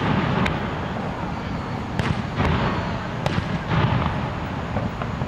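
Aerial fireworks shells bursting: about five sharp bangs over a continuous low rumble.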